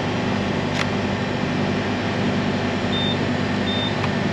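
Two short high electronic beeps from a fuel pump's card reader and keypad, about three seconds in and again just after, over a steady low mechanical hum. A single click comes about a second in.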